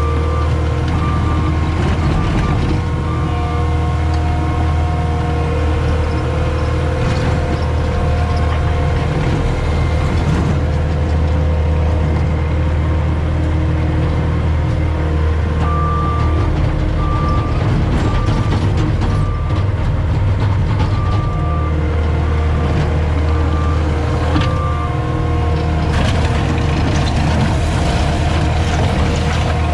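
CAT 259D skid steer's diesel engine running steadily while loading. Its reverse alarm beeps about once a second at the start, again through a long stretch past the middle, and near the end as the machine backs up.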